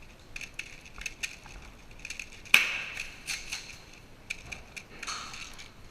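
A string of sharp clicks and knocks, the loudest a single crack about two and a half seconds in.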